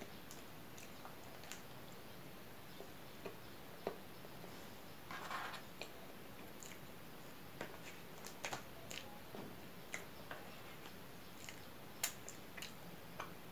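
Close-miked eating sounds: scattered soft clicks and taps of a metal fork and the mouth while chewing soft bread, with a brief soft squish about five seconds in, over a steady faint hiss. The sharpest click comes about twelve seconds in.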